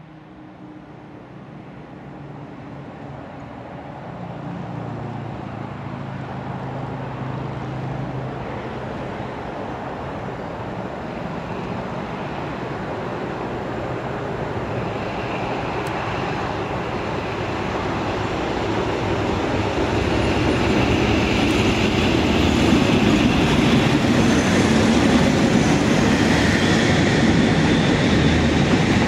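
A convoy of British diesel locomotives running coupled together (two Class 56s leading, then a Class 50 and a Class 37) approaches and passes, with the engines growing steadily louder. In the last few seconds the noise of the passing locomotives fills out as they go by close to the track side.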